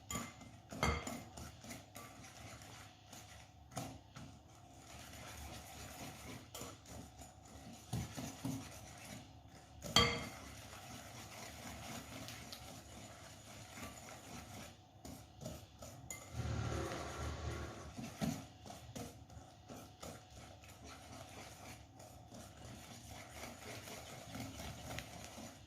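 Wire whisk stirring an egg, oil and brown sugar mixture in a bowl, rubbing and lightly clinking against the sides, with one sharper knock about ten seconds in.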